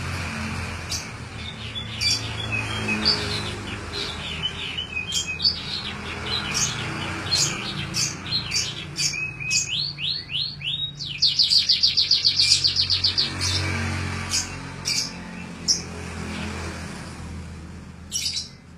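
Canary singing a varied song of sharp high chirps and rising whistled notes, with a loud, fast trill a little past the middle. The song is a canary imitating jalak (starling) calls.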